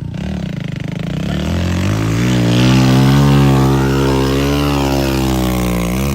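Vehicle engine revving hard under heavy load as it climbs a steep ramp. The pitch rises over the first two seconds and then holds high and steady, loudest a little past the middle.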